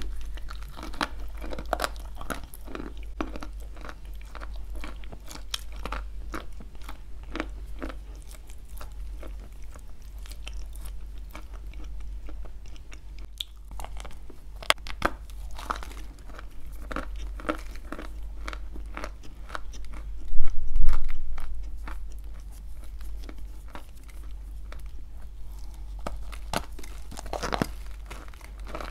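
Close-miked biting and chewing of dry grey clay with cream: a continuous run of small gritty crunches and crackles, with one much louder crunching bite about two-thirds of the way through.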